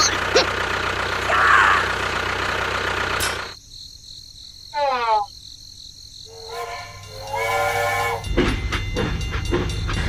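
Steady engine rumble that cuts off suddenly about three and a half seconds in. Then a short falling whistle tone, and later a held multi-note train-whistle sound.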